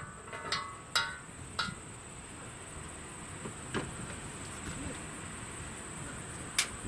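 Steady high-pitched insect trilling, like crickets, with a few light knocks and clinks, the loudest near the end.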